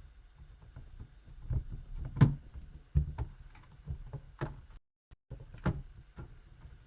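Plastic laptop keyboard being pried up from its frame: scattered clicks, knocks and handling scrapes, with several sharper knocks, as the keyboard is held down by adhesive.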